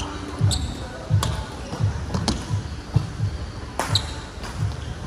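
Badminton play: a few sharp cracks of rackets striking the shuttlecock and a brief shoe squeak, over a run of dull low thuds coming about one and a half times a second.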